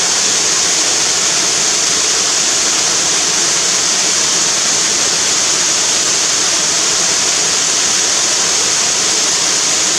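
Waterfall: water pouring and splashing in a steady, loud rush.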